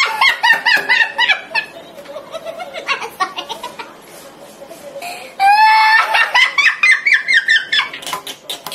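A woman laughing hard in high-pitched bursts: one fit of laughter at the start, quieter snickering in the middle, and another loud fit from about five seconds in.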